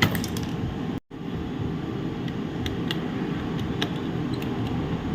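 Steady low machine hum with a few light clicks and taps; the sound cuts out for a moment about a second in.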